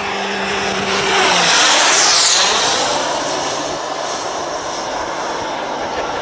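Radio-controlled model aircraft making a fast pass: its engine whine swells to a peak about two seconds in and drops in pitch as it goes by, then settles to a steady, more distant drone.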